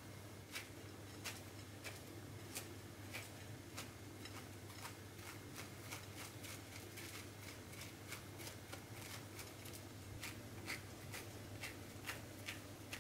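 Raw kadayıf pastry strands being pulled apart and rubbed between fingers: faint, dry rustling with many small ticks of strands snapping, over a low steady hum.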